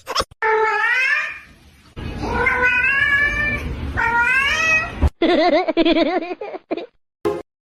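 A cat meowing in long, drawn-out calls, three in a row with the pitch bending up and down. About five seconds in, the sound cuts to another wavering call.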